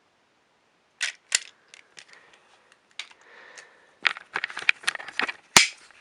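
Sharp plastic clicks and knocks from a Trackmaster Crash and Repair Thomas toy engine being handled, starting about a second in and coming thick and fast near the end, where the loudest snap is heard.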